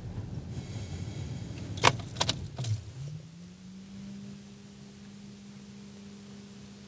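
Inside a stopped car: a short hiss, then several sharp clicks and knocks, then a low steady hum that rises into place about three seconds in.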